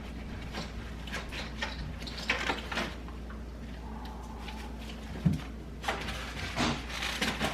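Food containers being shifted around on refrigerator shelves: scattered knocks, clicks and rustles, with the loudest knock about five seconds in.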